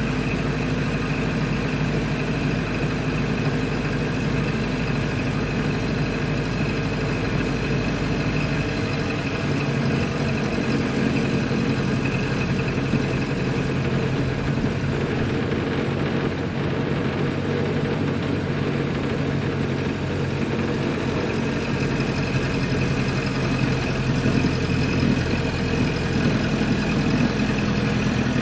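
Ford Model A's four-cylinder engine running steadily while the car is driven; the engine note steps up about nine seconds in and holds there.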